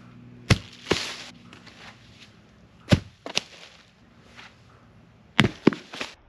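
Cut log rounds thrown onto a pile of other rounds, landing with hard wooden knocks. The knocks come in twos and threes, about every two and a half seconds.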